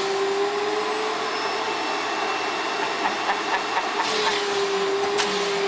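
Vacuum cleaner running, its nozzle drawing in a cat's tail. The steady motor whine fades out about a second in and comes back about four seconds in, with a few light clicks and a sharp tap near the end.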